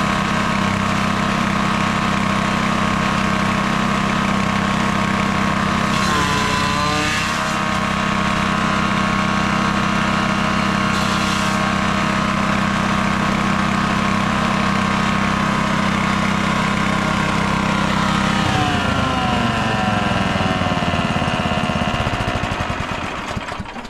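Grass chopper driven by a 7 hp gasoline engine, running steadily, with a brief dip in speed about six seconds in. About 18 seconds in the engine is shut down and the machine spins down, its pitch falling away over the last five seconds.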